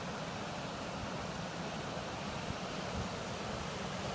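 A creek at full flood stage: muddy floodwater rushing steadily, with a couple of soft low thumps around the middle.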